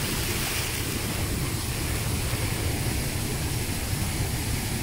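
Steady rushing of a waterfall pouring into a river pool, with a low rumble of wind on the microphone.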